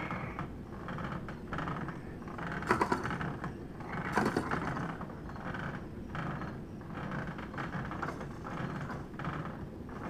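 Battery-powered baby swing running, a soft sound repeating about every two-thirds of a second as it swings. Two louder clattering rattles come about three and four seconds in.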